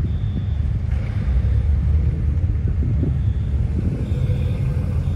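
Several modified cars idling and creeping forward in a queue, their engines and exhausts making a steady low rumble.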